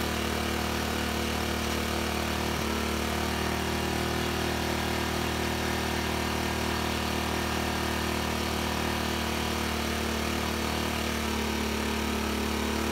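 Sportsman 800/1000-watt inverter generator's 40cc four-stroke engine running, loud and steady at a constant speed.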